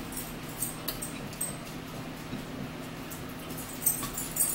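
Quiet eating at a table: chewing and scattered small clicks of fingers and food on plates, a few in the first second and a cluster near the end, over a steady low hum.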